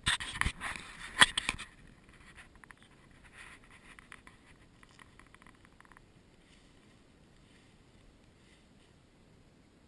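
Close rustling and scraping, loud for the first second and a half with a sharp knock about a second in, then faint crackling that dies away after about six seconds.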